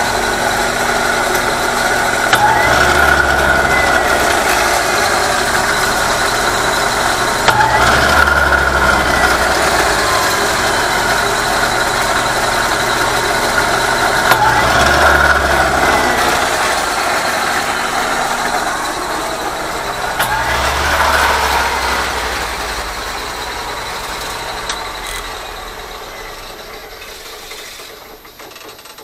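Horizontal metal-cutting band saw driven by a 95-volt DC treadmill motor, running through a long cut in metal. The motor surges in a slow pulse about every six seconds, then winds down near the end. This is the fault the owner puts down to the motor controller perhaps getting too hot on the long cut.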